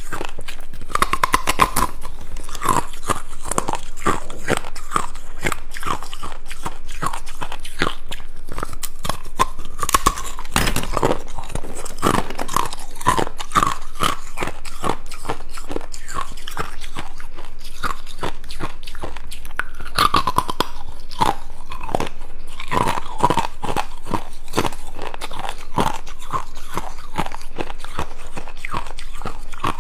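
Hard ice cubes being bitten off a frozen clump and chewed: a dense run of sharp crunches, several a second.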